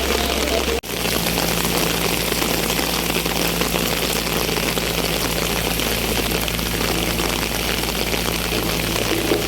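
A vehicle engine running steadily at idle, a low steady hum under an even hiss, with a brief dropout about a second in.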